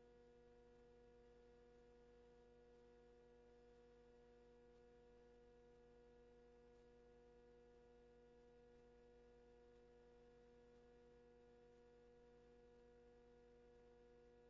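Near silence: only a faint steady hum of a few fixed tones.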